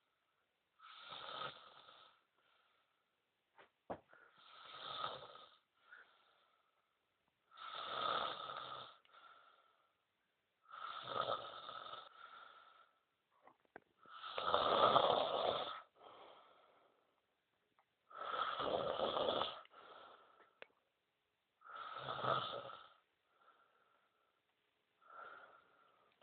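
A sleeping person snoring: seven snores about three to four seconds apart, each lasting a second or so, then a fainter one near the end.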